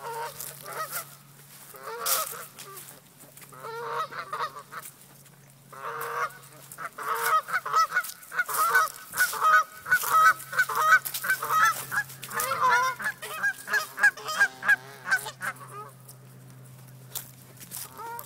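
Canada geese honking: short groups of honks at first, then rapid, nearly continuous honking from about seven seconds in, stopping a couple of seconds before the end.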